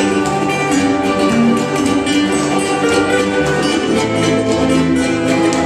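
Hawaiian band playing live, with strummed ukuleles and guitars.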